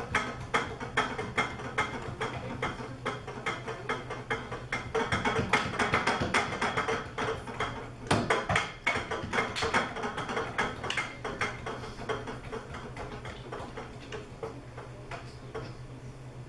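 Cup percussion: cups being tapped, knocked and slapped in a fast, dense rhythm of sharp clicks and knocks. The playing thins out and gets quieter over the last few seconds.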